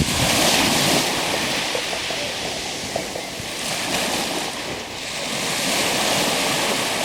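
Black Sea surf washing onto the beach. Waves swell in about a second in and again around six seconds, with the wash of water between.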